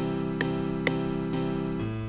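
FL Studio's stock Grand Piano sample playing back a programmed chord pattern, the chords held with a short click on each beat, about two a second. Near the end the chord fades and a lower note comes in.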